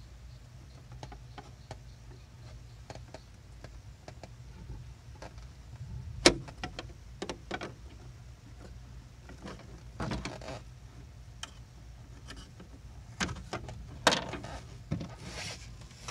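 Hand-handling noise of twine being knotted onto a stiff wire and the wire worked through a hole in a boat's gunwale: scattered light clicks and taps, the sharpest about six seconds in, over a low steady hum.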